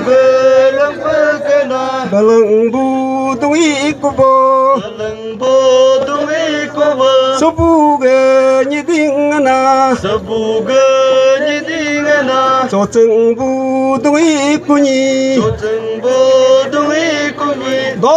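A voice chanting in short repeated phrases, holding a few steady notes, in a Nyishi chant.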